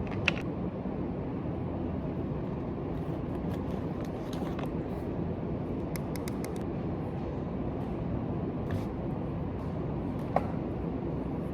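Steady low rumbling background noise, with a few small clicks scattered through it and two sharper clicks, one just after the start and one near the end.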